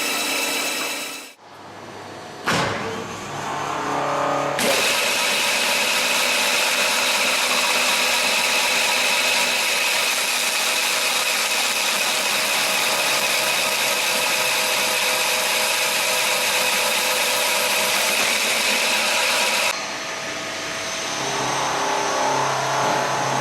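CNC woodworking machines running, a steady mechanical whine with cutting noise. The sound breaks and changes character about a second in, again around four and a half seconds, and near the end, as one machine sequence gives way to another.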